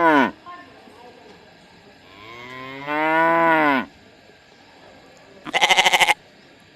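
A cow mooing: the tail of one moo right at the start, then one long moo of about two seconds that rises and falls in pitch. Near the end comes a short, quavering sheep bleat.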